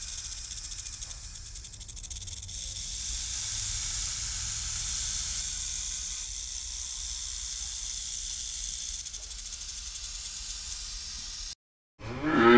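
Snake hissing: a long, steady hiss that cuts off suddenly. Near the end a cow begins to moo.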